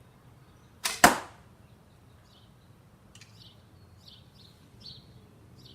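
A bow with an epoxy-repaired cracked limb being shot once: a sharp crack as the string is released and, about a fifth of a second later, a louder smack of the arrow hitting the target that rings briefly. The repaired limb holds through the shot. Faint bird chirps follow.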